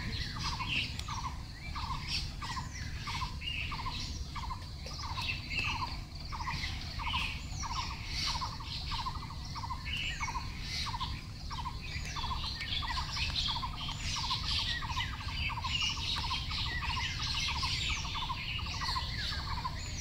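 Birds chirping and squawking, with one short call repeated steadily about twice a second and many higher chirps over a low steady hum.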